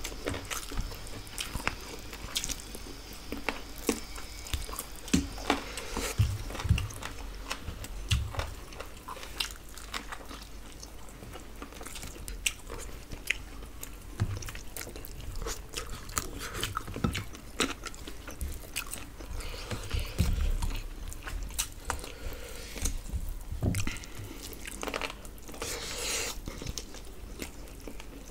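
Close-miked chewing and biting as two people eat rice and chicken pieces with their hands: irregular wet clicks, smacks and small crunches, with a few soft low thumps.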